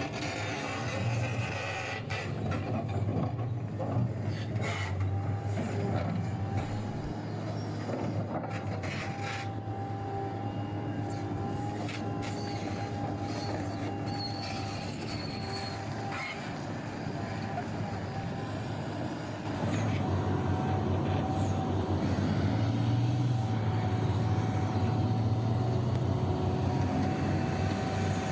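Large mining hydraulic excavator at work: a steady diesel engine drone with a thin steady whine above it and scattered knocks. It gets louder about two-thirds of the way through.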